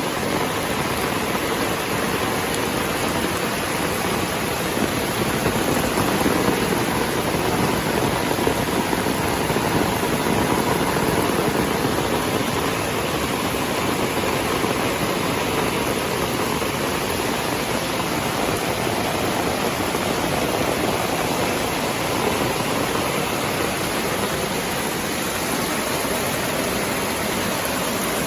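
Rain falling steadily, a dense, even hiss with no breaks.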